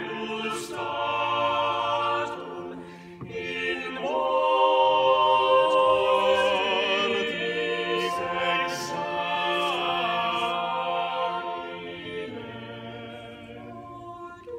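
Small mixed choir of men's and women's voices singing unaccompanied medieval sacred music in long, held notes. The singing dips briefly about three seconds in, swells louder for the middle stretch, then softens near the end.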